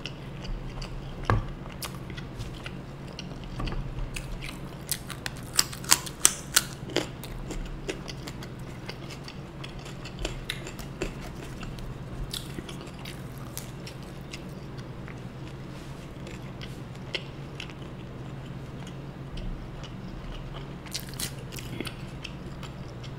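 Close-miked chewing and biting of soya chunk Manchurian, with wet mouth sounds and scattered sharp clicks, most of them about five to seven seconds in and a few more near the end, over a steady low hum.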